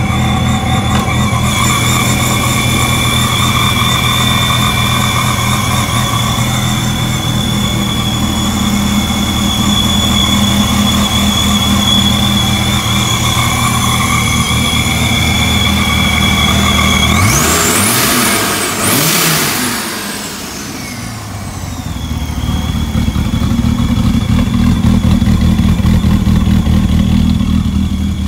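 Supercharged 2004 Dodge Viper's 8.3-litre V10 idling, still warming up after a cold start, with a steady high whine over it. About two-thirds of the way through it is revved once, the pitch rising and falling back to idle.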